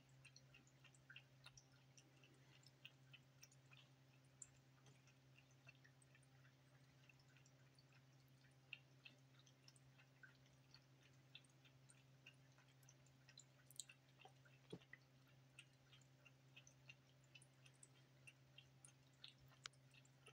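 Faint quick lapping of a cat drinking from an electric pet water fountain, small irregular ticks about three or four a second, over the low steady hum of the fountain's pump.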